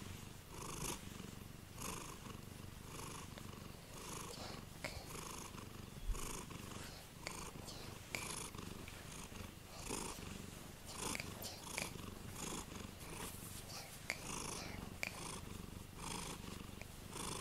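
Domestic cat purring steadily close up, swelling with a breathy hiss about once a second as it breathes in and out. A single brief knock about six seconds in.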